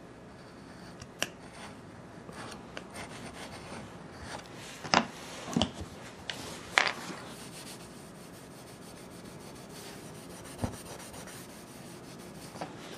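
A hand tool rubbing on wooden flooring during a floor repair, with a few sharp taps between about five and seven seconds in and another near eleven.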